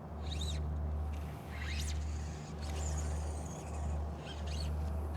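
Low rumble of wind buffeting the microphone, swelling and dipping about once a second, with a bird giving short high chirps that rise and fall, repeated several times.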